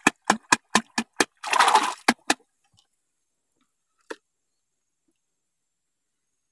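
Hand slapping and stirring shallow water among water hyacinth: quick splashes about four a second, with one longer splash among them, stopping after about two and a half seconds. One faint click follows about four seconds in.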